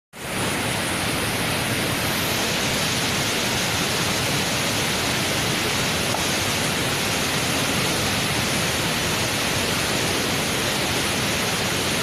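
Steady rush of white-water rapids pouring down a steep rock waterfall chute.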